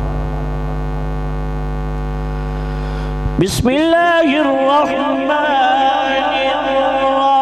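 Melodic Quran recitation (tajweed) by a male qari through a microphone and sound system. It opens as a long steady held tone over a steady mains hum, then breaks sharply about three and a half seconds in, and a new phrase starts with the voice rising and falling in ornamented melody.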